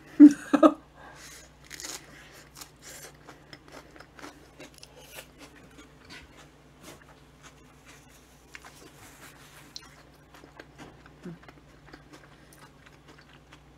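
Close-miked chewing and biting of a soft bread sandwich: many small wet mouth clicks and faint crackles. It opens with a brief, loud voice sound.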